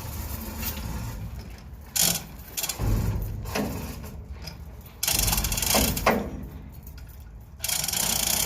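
A hand-operated ratchet clicking rapidly in bursts about a second long, several times over: lifting gear being worked to raise or lower a concrete balcony slab.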